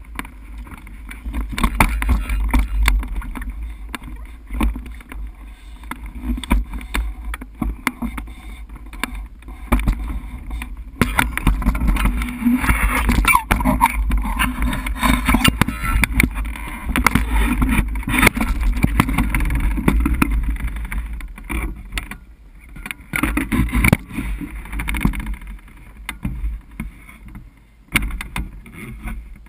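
Wind buffeting the microphone of a camera mounted on a hang glider, a low rumble, with irregular knocks and rattles as the glider and its launch dolly are handled.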